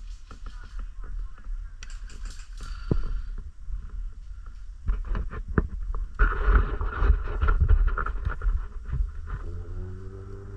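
Irregular clicks and knocks over a low, rumbling handling noise, busiest and loudest around the middle and later part: people moving about with gear during airsoft play.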